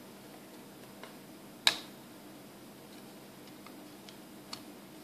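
Hard plastic Minion Happy Meal toy being handled and turned in the hands: one sharp click about a second and a half in, and a few faint ticks later.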